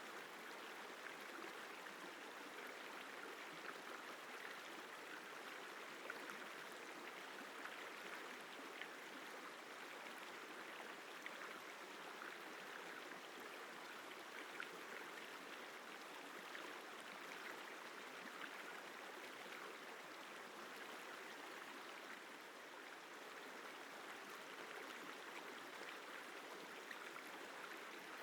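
The Isar River flowing: a soft, steady rush of water with fine splashes and gurgles running through it.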